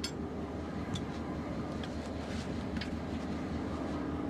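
Diesel locomotive engine running steadily in a rail yard.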